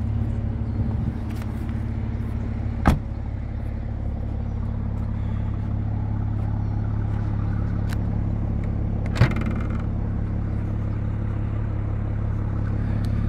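A 2018 Mercedes-AMG C43's twin-turbo V6 idling steadily, with two sharp knocks from the car's body, about three seconds in and again near nine seconds.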